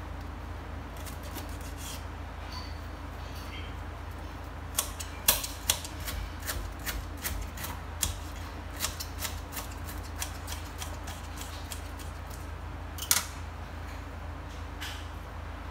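Irregular sharp clicks and taps over a steady low hum: a cluster from about five to ten seconds in, and one loud click near the end.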